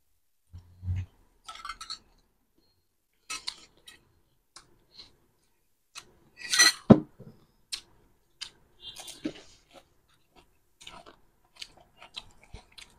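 Eating at the table: scattered clinks of a spoon against dishes and crisp crunching of panipuri and chatpate, with a sharper click and crunch about seven seconds in.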